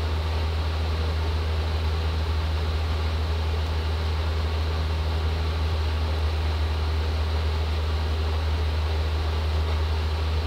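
Forge blower running steadily: an even rush of air over a strong, unchanging low hum, blowing the coal forge that is melting brass in a crucible.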